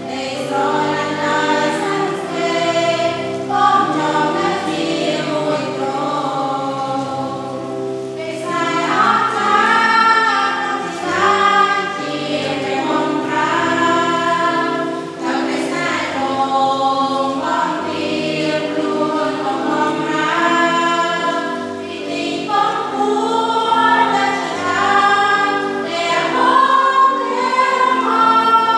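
A group of voices singing a Christian worship song in Khmer, accompanied by sustained chords on an electronic keyboard.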